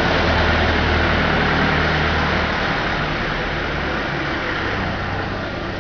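Salt and sugar bag packing machine running: a steady mechanical hum under a dense hiss, growing a little fainter over the last couple of seconds.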